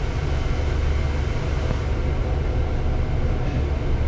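Steady low rumble of a double-decker bus, heard from its upper deck as it creeps forward in traffic.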